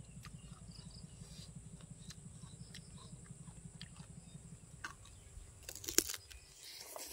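Crackling crunch of crispy fried pork skin being bitten about six seconds in, after a few small clicks of food being handled, over a low steady rumble.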